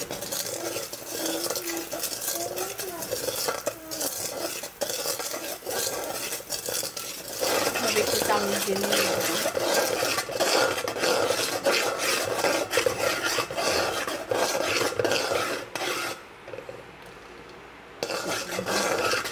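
A metal utensil stirring and scraping sugar syrup as it caramelises in a stainless-steel pot, with rapid clinks and scrapes against the pan. The stirring grows louder about seven seconds in and stops briefly near the end.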